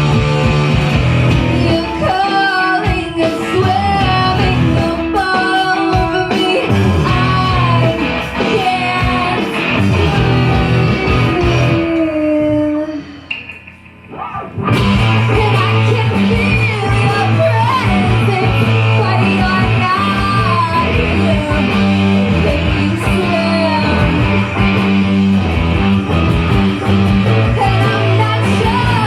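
Live rock band playing a song: guitars, bass and drums with a sung melody. About halfway through the band drops out for a moment, leaving one sung line sliding down, then comes back in full with a steady low bass line.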